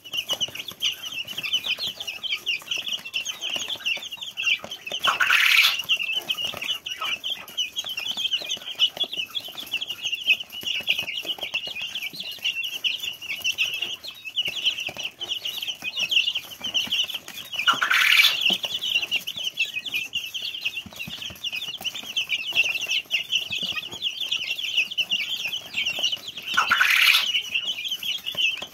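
A flock of young chicks peeping continuously, many high chirps overlapping at once. Three times a brief, louder rush of noise cuts across the peeping.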